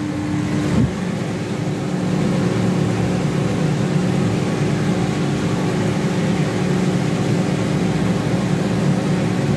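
Aquarium air pump running with a steady low hum, a little louder after the first second or two.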